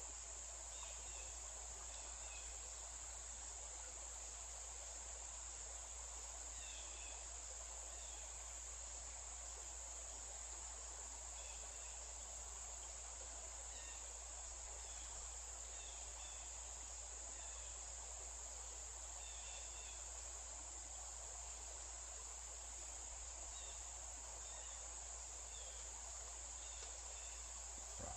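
Steady, high-pitched drone of a chorus of insects, with faint short chirps scattered through it.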